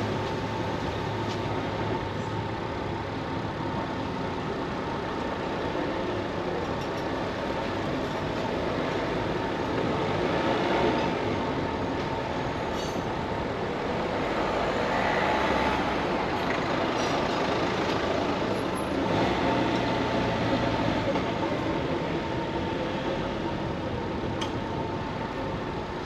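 A steady motor hum amid continuous outdoor noise, growing a little louder around the middle.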